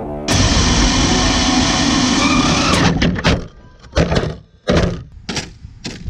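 Speed-modified Traxxas TRX-4 RC truck with a brushless motor running flat out on pavement, a loud steady rush that starts suddenly. About three seconds in it breaks into a string of sharp clattering knocks as the truck tumbles and flips over. The owner blames the tyres hitting the side guards for the flips.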